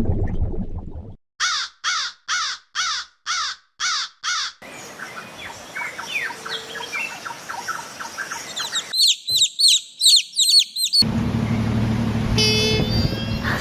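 A bird gives a run of seven loud, harsh calls, about two a second. Quieter chirping follows, then a quick series of high-pitched calls, and a steady low hum comes in near the end.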